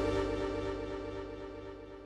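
Modal Electronics Cobalt 8X virtual-analog synthesizer preset, a held chord rich in overtones dying away in its release tail and fading steadily.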